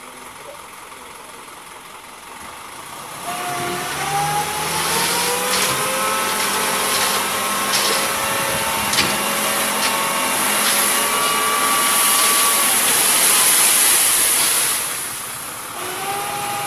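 Light dump truck's engine idling, then revving up about three seconds in to drive the hydraulic tipper as the bed lifts, with a whine that rises in pitch and then holds. A few knocks and a growing hiss come from the load of sand sliding out.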